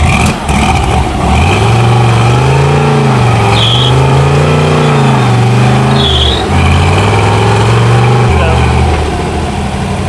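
Off-road 4x4's engine revving up and down in several swells as the truck works to climb out of a deep rut, struggling for traction.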